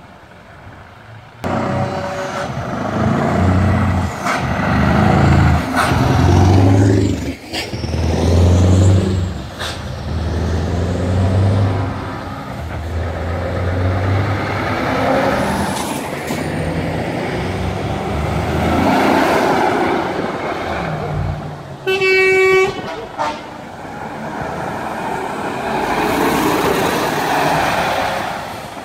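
Heavy truck tractor units' diesel engines pulling past, the engine pitch rising and falling as they accelerate and change gear. A short air-horn blast sounds about three-quarters of the way through.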